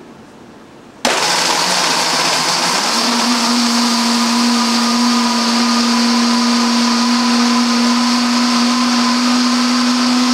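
Waring Xtreme Series commercial blender, driven by a 3.5 peak horsepower motor, running on high on its 10-second timer and crushing a jar full of ice and strawberry daiquiri mix. It starts abruptly about a second in, and a couple of seconds later a steady hum settles in under the loud noise of the blade and ice.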